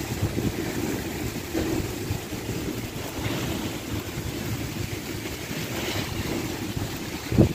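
Heavy rain falling steadily, with gusty wind rumbling on the microphone.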